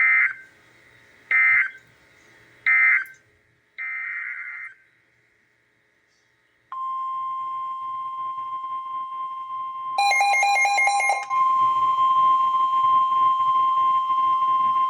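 NOAA Weather Radio alerting tones. First come three short bursts of SAME digital data squawk, the end-of-message code closing the previous watch, and then a fourth, softer burst. After about two seconds of silence a long steady 1050 Hz warning alarm tone starts, with a brief rapid beeping laid over it about ten seconds in.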